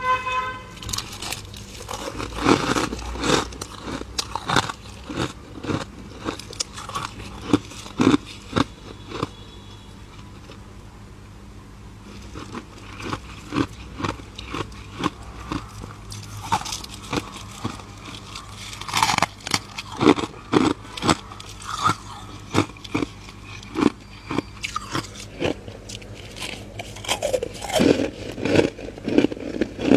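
Freezer frost being bitten and chewed: a long run of crisp crunches, with a brief lull about a third of the way in and quicker bites later.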